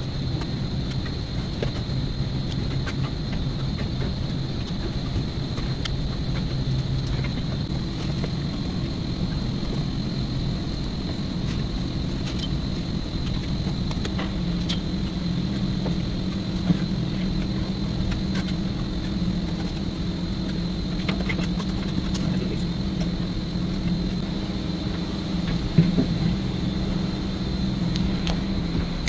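Steady low mechanical hum with a thin high whine over it, the hum's pitch stepping up about halfway through; a few faint clicks and a brief knock near the end.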